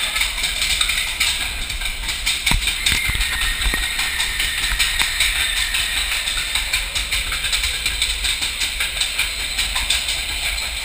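Matterhorn roller-coaster car rattling along its track, heard from aboard: a steady clattering rumble with rapid small clicks and a few sharper knocks a few seconds in.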